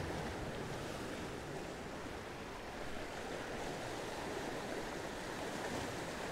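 Small waves washing over and breaking against the boulders of a rock jetty: a steady rush of surf.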